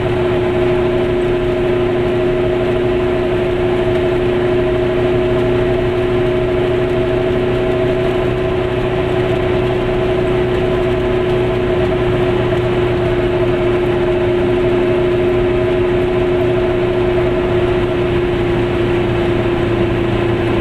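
Car cabin noise while driving: a steady engine drone with a constant hum, mixed with tyre and road noise.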